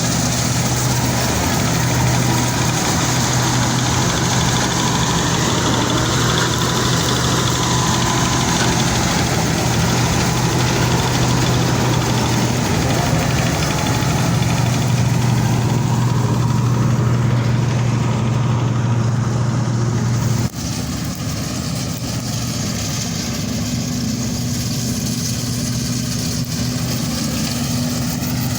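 Engine of large harvesting machinery running steadily; the sound changes abruptly about twenty seconds in, then carries on running a little quieter.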